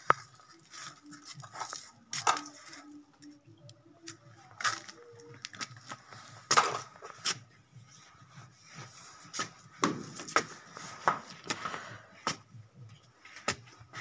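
Irregular light knocks and clicks, a few of them sharp, over a faint steady high-pitched tone.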